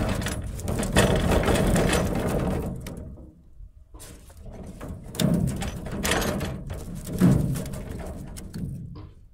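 Water splashing and sloshing with knocks as a fish trap is hauled at the side of the boat, in two bouts with a short quiet break after about three seconds.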